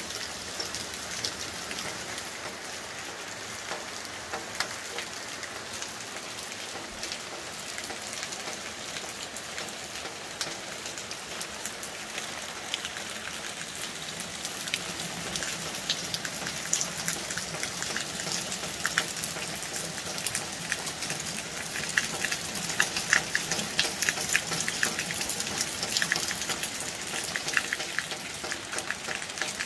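Steady rain falling on paving stones and puddles: a continuous hiss with many sharp ticks of individual drops striking nearby. The drop hits grow louder and denser from about halfway through.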